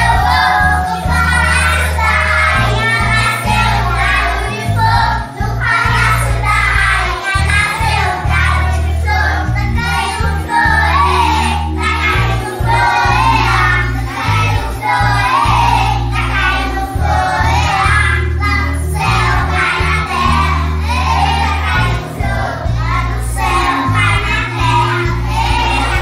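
A children's song: a group of young children singing over music with a steady bass line.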